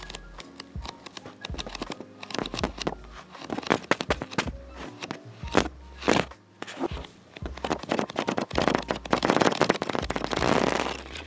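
Paper pages of a paperback manga volume being flipped: a run of crackling page flicks that speed up near the end into a fast, continuous riffle, the loudest part.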